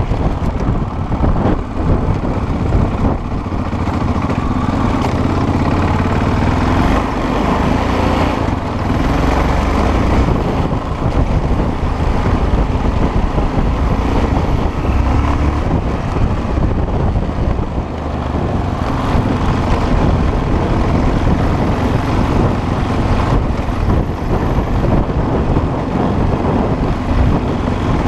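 Off-road motorcycle engine running loudly and continuously while the bike is ridden.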